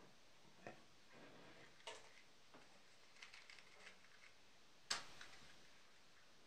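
Faint scattered clicks and taps over quiet room tone, with one sharp snap about five seconds in that tails off briefly.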